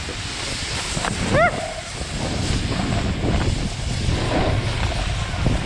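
Wind buffeting an action camera's microphone, a steady low rumble with a snowboard scraping over snow. A short rising vocal sound comes about one and a half seconds in.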